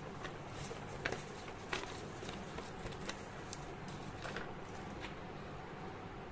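Light handling sounds, scattered rustles and clicks, the sharpest about one and two seconds in, over a steady background hiss and hum.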